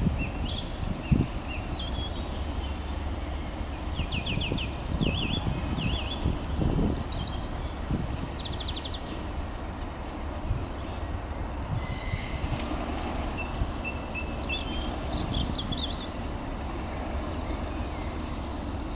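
Low, steady rumble of a Class 37 diesel locomotive's English Electric V12 engine as it approaches slowly. Birds chirp and trill over it at intervals.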